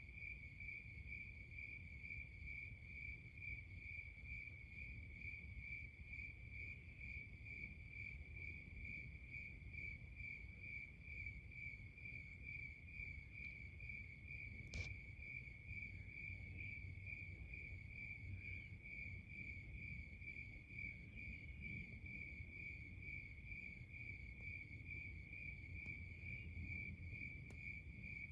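Crickets chirping in a steady, even, high-pitched pulsing rhythm over a low background rumble, with a single sharp click about halfway through.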